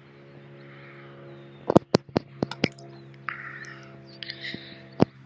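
A quick run of sharp knocks and pops about two seconds in, one more near the end, over a steady low hum.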